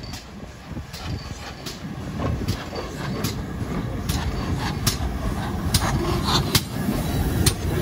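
GWR Saint class two-cylinder 4-6-0 steam locomotive No. 2999 running slowly past at close range, growing louder as it nears. A sharp click comes regularly, a little more than once a second, over a low rumble.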